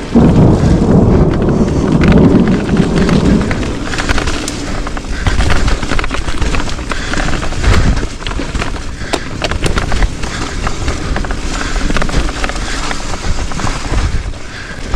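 Wind rumbling hard on a body-mounted action-camera microphone, heaviest over the first few seconds, with many sharp irregular knocks and rattles throughout, typical of moving fast over a rough, rocky trail.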